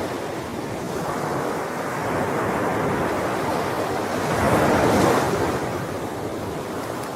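Sea waves washing onto a shore. A steady rush of surf swells to a peak about five seconds in, then eases back.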